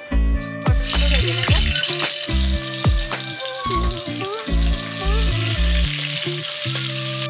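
Halved pointed gourds (potol) sizzling steadily as they fry in hot oil in a kadai; the sizzle starts abruptly about a second in. Background music plays underneath.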